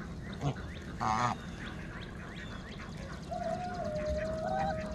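A domestic goose honks once, about a second in, among fainter short calls from the poultry flock. In the second half a long, steady note is held.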